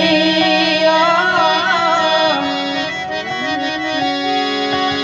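Harmonium playing the melody of a devotional song, sustaining reed notes and chords. A wavering, ornamented line runs over it in the first two seconds before the notes settle into steady held tones.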